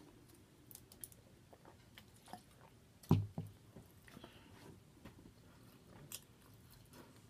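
A person chewing a soft cheese slider close to the microphone: small wet mouth clicks and smacks. There are two dull knocks about three seconds in, the louder one first.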